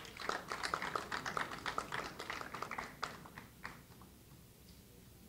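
Light, scattered applause from a small audience, a quick irregular patter of claps that thins out and stops a little under four seconds in.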